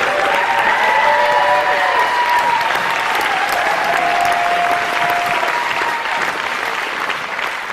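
Theatre audience applauding steadily after the show, with a few drawn-out whoops from the crowd over the clapping in the first seconds. The applause starts to die down near the end.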